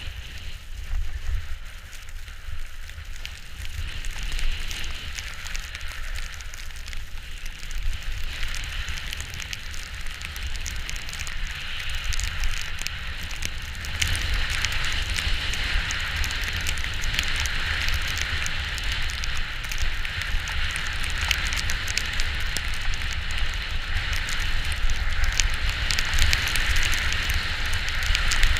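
A rider's edges hissing and scraping over snow on a continuous downhill run, getting louder and rougher about halfway through as speed picks up, over a constant low rumble of wind on the microphone.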